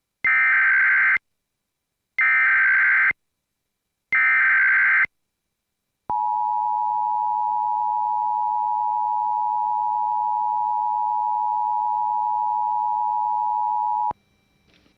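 Emergency Alert System tones. First comes the SAME digital header: three one-second bursts of buzzing data warble, a second apart. Then the two-tone EAS attention signal (853 and 960 Hz together) holds steady for about eight seconds and cuts off. These tones open an emergency alert, here the Emergency Action Termination message.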